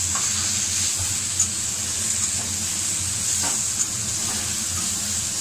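Shredded vegetables sizzling steadily as they are stir-fried in oil in a metal kadhai, with a few light clicks as they are stirred against the pan.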